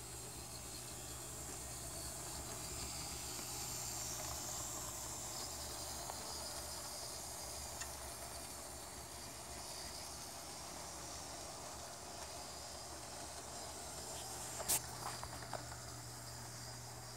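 Faint, steady high whine and hiss of an N scale model diesel locomotive's motor as it pulls a freight train along the track, a little louder a few seconds in. One sharp click near the end.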